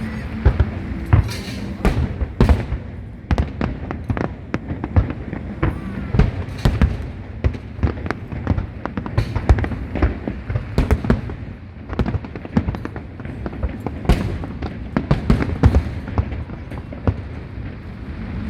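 Fireworks display: a dense, irregular run of sharp bangs and crackles, several a second, over a steady low rumble.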